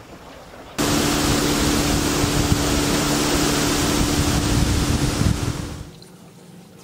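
Boat under way: a steady outboard engine hum under loud wind and water rush. It starts abruptly about a second in and fades out near the end.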